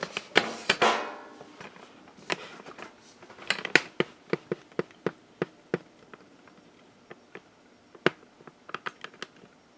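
Camera handling noise as the camera is moved and repositioned: a cluster of light clicks and knocks in the first second, then scattered taps, a short run of evenly spaced ones, and one sharp click about eight seconds in.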